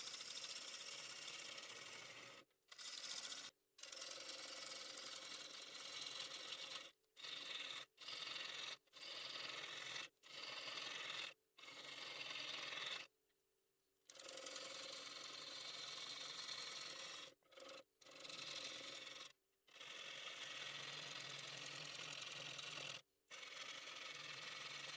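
Gouge cutting into the inside of a spinning red oak bowl on a wood lathe: a steady scraping cut, broken by short sudden gaps every second or two.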